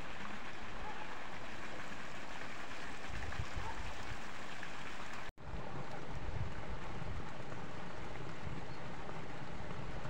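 Steady outdoor rushing noise with an uneven low rumble of wind on the microphone; it drops out for an instant about five seconds in.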